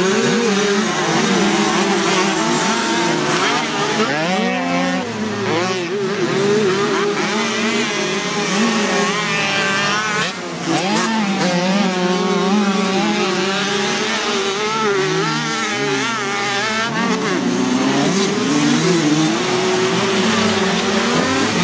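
Several small two-stroke moped racing engines running at once, their pitch rising and falling continually as the riders open and close the throttle.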